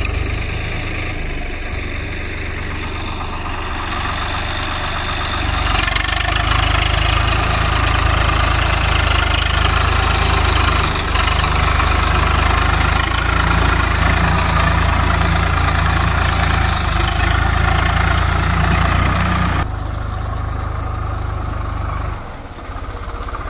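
Diesel tractor engines running under load, working harder from about five seconds in, then easing off twice near the end.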